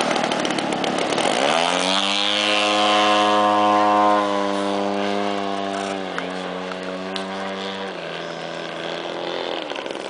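Radio-controlled model airplane engine running up to high revs about a second in for takeoff, holding a steady, high buzz as the plane climbs out, then stepping down in pitch twice and fading toward the end.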